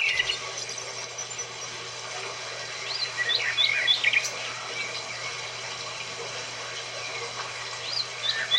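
Birds chirping in short quick phrases, a cluster about three seconds in and another near the end, over steady background outdoor noise.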